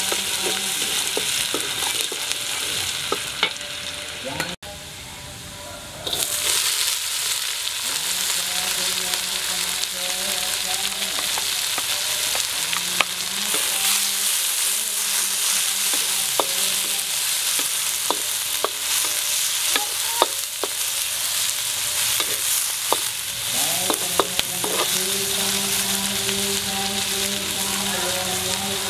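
Hot oil sizzling in a carbon-steel wok as chopped garlic, onion and bell peppers are stir-fried, with a wooden spatula scraping and knocking against the wok. The sizzle drops away briefly about five seconds in, then carries on steadily.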